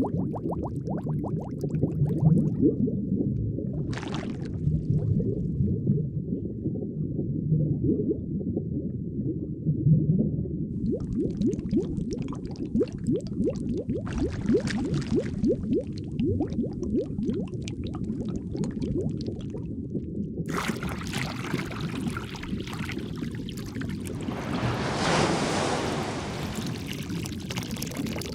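Underwater ambience of bubbling and gurgling water, a dense low crackle of bubbles throughout. A hissier, brighter wash of water joins about two-thirds of the way in and swells near the end.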